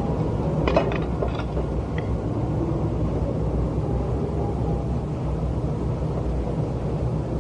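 Steady low rumble of room or traffic ambience, with a few light clinks of a spoon against a plate about a second in.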